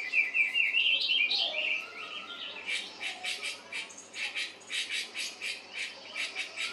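Bird calls played through a television speaker: a quick run of high chirps, then a harsh chattering call repeated about three to four times a second.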